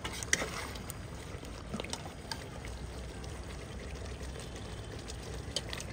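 Thick chicken masala gravy simmering in a pot: a steady bubbling hiss with a few sharp pops.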